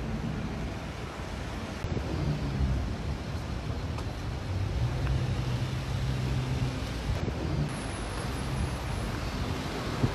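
Road traffic noise: a steady hiss with a low engine hum that is strongest through the middle.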